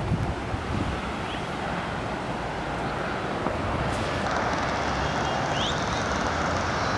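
Steady rushing outdoor noise that grows slightly louder, with no single sound standing out.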